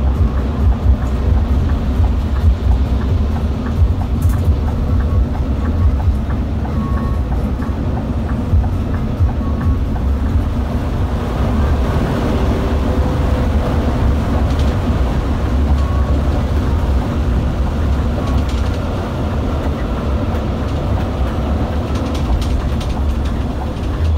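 Cabin noise inside a Scania K360 IB coach at highway speed: a steady, loud low rumble of tyres and engine.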